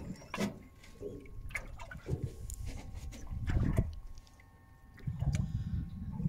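Wind buffeting the microphone in irregular low gusts, with water lapping against a small boat's hull and a few light clicks.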